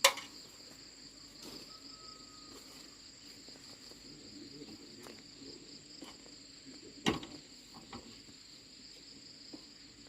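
Steady high chirring of crickets, with a sharp knock right at the start and another about seven seconds in.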